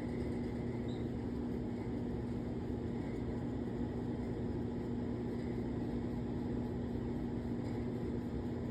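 Steady low hum with a constant tone, unchanging throughout, like a room's ventilation or an electrical appliance.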